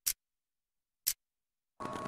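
Clock ticking sound effect: two sharp ticks about a second apart against dead silence. Near the end, steady room sound with a faint constant hum cuts back in.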